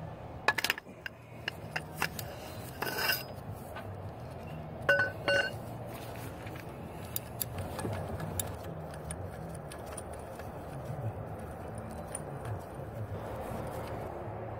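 Metal tools clinking and clicking on a Saab engine's timing chain tensioner as a large socket and ratchet back it out: a quick cluster of sharp clicks near the start, then a few ringing metallic clinks around two, three and five seconds in, with fainter ticks after. A low steady hum runs underneath.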